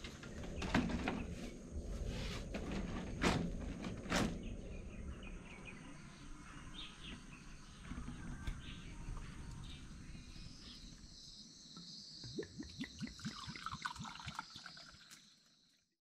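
Outdoor ambience with birds chirping, after several sharp knocks and handling noises in the first few seconds.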